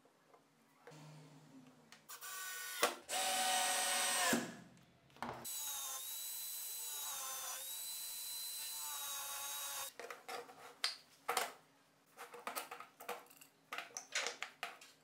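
Electric drill held in a drill stand boring through a wooden board with a spade bit: a steady high whine that dips in pitch as the bit bites, after a shorter run that winds down in pitch. About ten seconds in it gives way to a string of clicks and knocks as bar clamps and boards are handled.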